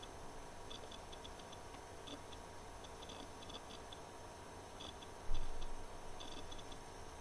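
Quiet room tone with a steady low hum and faint, irregular ticking, and one brief low thump about five seconds in.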